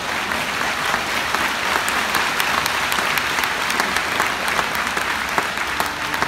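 Large concert audience applauding: dense, steady clapping. The orchestra's first notes come in right at the end.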